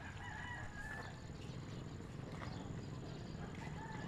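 A rooster crowing faintly, one call of just under a second near the start, with a few fainter short animal calls after it over a low steady rumble.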